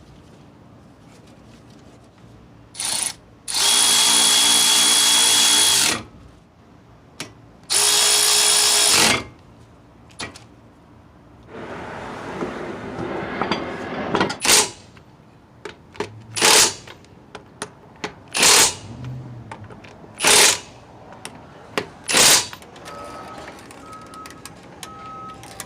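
A handheld power tool running in bursts. It spins with a pitched whine for about two seconds, then for about a second, and later gives five short bursts about two seconds apart.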